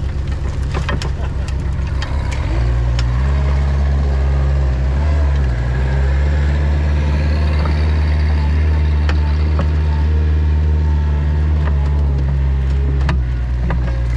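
Diesel engine of a small construction machine running. Its speed rises about two and a half seconds in and then holds steady, with a few knocks.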